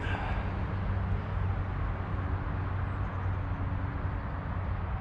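Steady low background rumble with a constant low hum underneath, with no distinct events.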